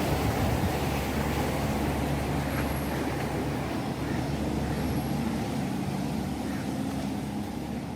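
A large engine running steadily with a low hum over a wash of outdoor noise, easing off slightly near the end.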